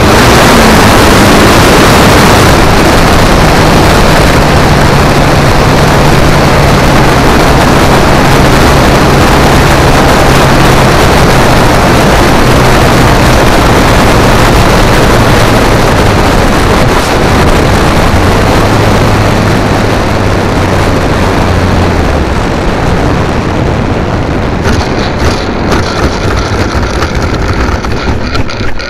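Model airplane in flight heard through an onboard keychain camera's microphone: a loud rush of wind over the mic mixed with the steady drone of the propeller motor, which shifts pitch a few times. Near the end the rush thins out and turns uneven as the plane comes down.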